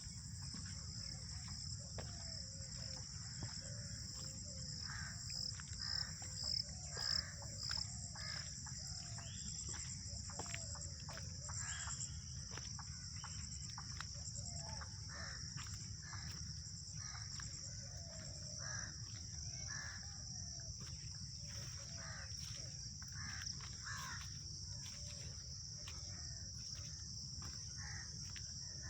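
Mixed birdsong in a wooded park: many short calls from several birds overlapping, over a steady high insect drone and a low rumble. A run of four louder calls stands out about six to seven seconds in.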